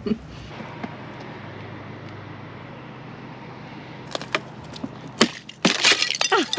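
Thin ice on a frozen puddle cracking and breaking under a dog's paws and nose. A few sharp cracks come about four seconds in, then a dense run of crunching and snapping near the end; before that there is only a quiet steady background.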